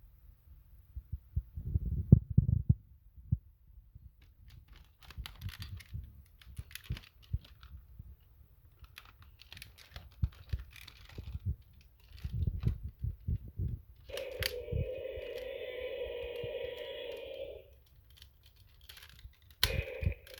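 Knocks, clicks and rattles as the plastic Jurassic World Stomp and Strike T-Rex toy is handled. About fourteen seconds in, the toy's electronic dinosaur roar plays through its small speaker for about three and a half seconds, and a second roar starts near the end.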